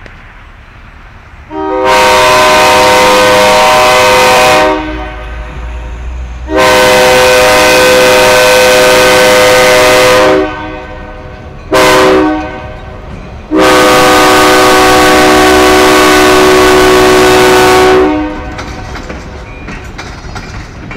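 Diesel locomotive's multi-chime air horn sounding two long blasts, a short one and a final long one, the standard grade-crossing signal, over the running diesel engine. After the last blast the engine and the passenger cars roll past on the rails with a faint clickety-clack.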